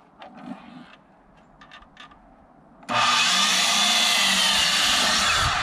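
A few faint handling clicks, then about three seconds in a miter saw starts up and cuts through a 10-foot brown pressure-treated 2x6, running loud and steady with the blade's pitch bending as it works through the wood.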